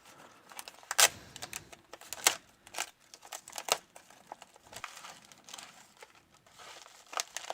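A package being opened by hand: packaging crinkling and rustling, with scattered sharp clicks and snaps, the loudest about a second in and a little past two seconds in.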